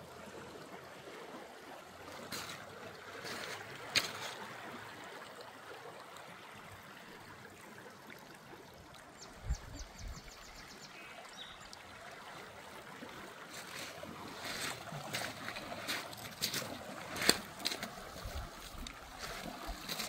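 River water lapping and splashing, with scattered sharp splashes or knocks that come more often in the last six seconds.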